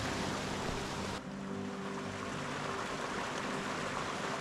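Stream water rushing over rocks and a small cascade, a steady hiss; its tone shifts, losing some of its highest part, about a second in.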